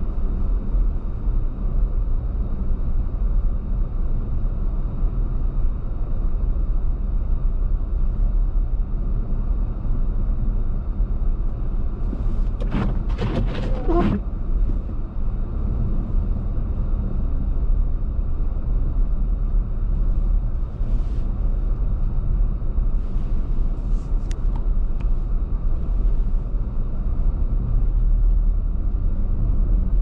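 A car driving, with a steady low rumble of engine and road noise. About halfway through there is a short cluster of sharp clicks, and a few fainter ticks come later.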